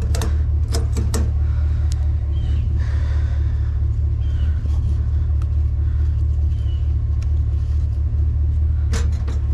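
Vehicle engine idling with a steady low rumble, with a few quick sharp clicks near the start and a cluster again near the end.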